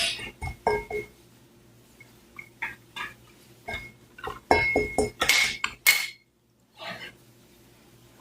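Spoon knocking and clinking against a bowl as slime ingredients are stirred: an irregular run of knocks, some ringing briefly, that stops about seven seconds in.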